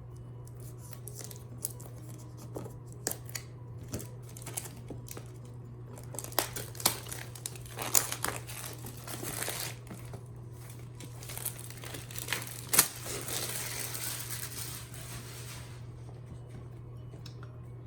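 A keyboard's retail box being unpacked by hand: packaging crinkling and tearing, with scattered sharp clicks and snaps and a few longer stretches of rustling, over a steady low hum.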